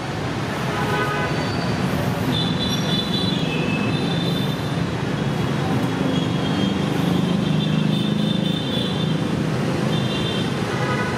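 Road traffic noise: a steady wash of passing engines, with short high-pitched tones now and then.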